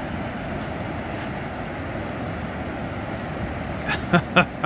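Steady rush of surf and wind across an open beach, with a quick run of four or five splashes near the end as dogs wade through shallow water.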